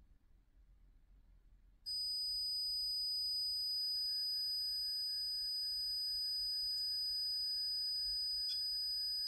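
A steady, high-pitched electronic tone starts suddenly about two seconds in and holds without a break, with fainter tones above and below it.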